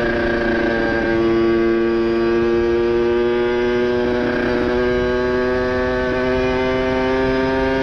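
Kawasaki Ninja RR's single-cylinder two-stroke engine, ported and fitted with a PWK 30 carburettor and an ABRT expansion-chamber exhaust, held at steady high revs. It makes one even, high-pitched note that barely changes.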